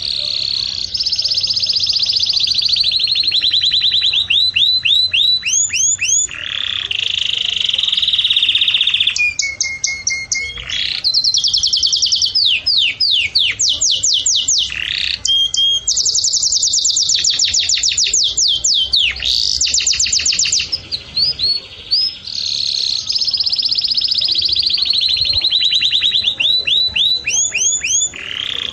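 A songbird singing a loud, almost unbroken song of rapid trills and runs of repeated sweeping notes, switching to a new phrase every few seconds.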